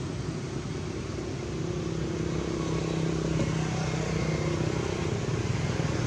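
An engine runs steadily with a low hum, getting gradually louder over the last few seconds.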